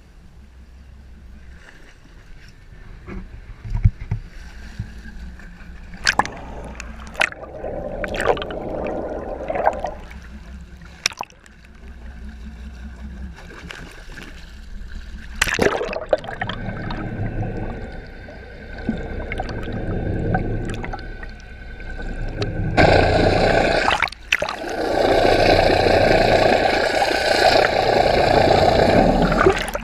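Water gurgling and sloshing around a fishing boat, with scattered sharp knocks. A steady tone runs for several seconds in the middle, and the water noise grows much louder near the end.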